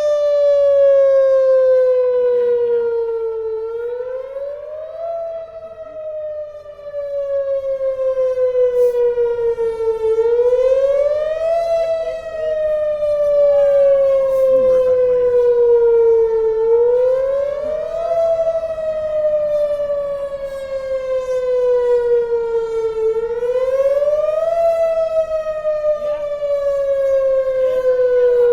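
Outdoor civil-defense warning siren sounding its test signal, a wail. The tone rises quickly, then falls slowly, repeating about every six and a half seconds, and the loudness swells and dips.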